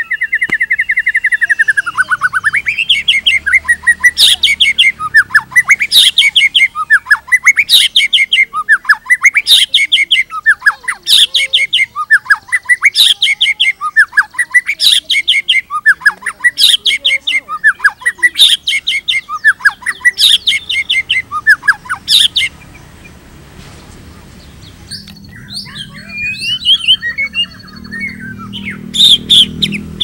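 White-rumped shama singing. It opens with a falling trill, then repeats one loud phrase about eleven times, roughly every two seconds: a rising sweep ending in a sharp high note. The phrases stop abruptly about 22 seconds in, and softer, varied chirps and whistles follow near the end.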